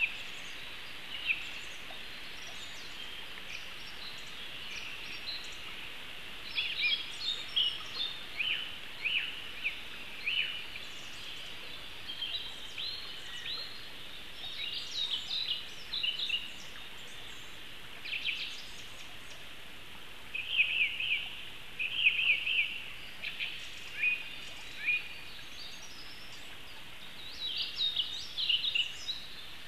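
Small songbirds singing: phrases of short high chirps and quick trills, sparse at first and frequent from about six seconds in, over a steady hiss.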